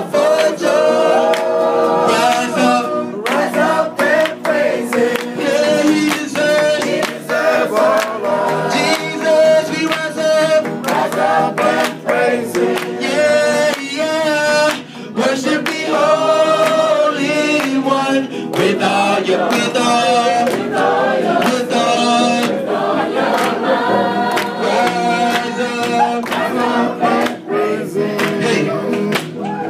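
Group of voices singing a gospel song together, loud and continuous, with sharp percussive strikes or claps running through it.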